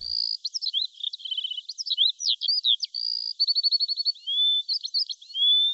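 Songbirds singing: a quick, varied run of high chirps, whistled notes and short trills, with no other sound beneath it.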